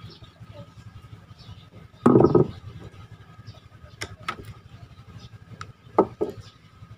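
Small metal parts of a Fugu Tora 4000 spinning reel's bail arm and line roller being handled and unscrewed during a teardown. A dull knock about two seconds in, then a few light clicks, the last two close together near the end.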